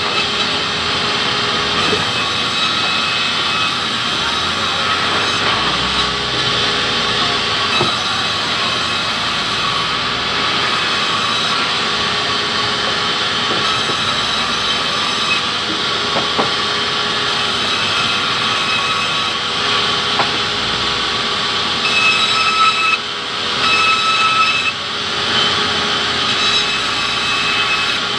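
Sawmill band saw running and ripping a log lengthwise into slabs: a steady machine noise with thin whining tones. The noise grows uneven for a few seconds about three-quarters of the way through.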